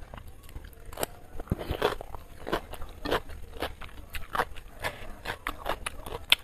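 Crunching and chewing of a raw cucumber slice, picked up close: a run of short, irregular crisp crunches.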